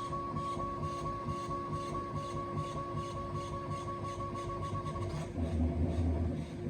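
Bambu Lab X1 Carbon 3D printer running and making strange sounds: a steady whine with a soft rhythmic pulse about two and a half times a second. About five seconds in, the highest whine stops and a deeper hum takes over.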